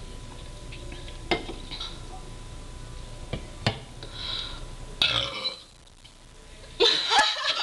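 A person burping after drinking fizzy soda: a few sharp clicks, then short bursts, with the loudest and longest burp near the end.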